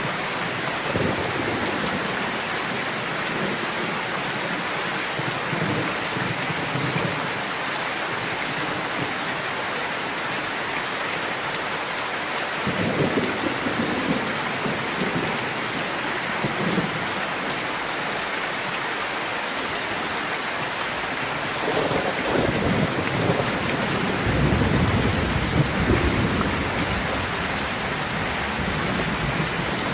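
Steady rain falling, with thunder rumbling twice: a roll about 13 seconds in and a longer, deeper, louder one from about 22 seconds.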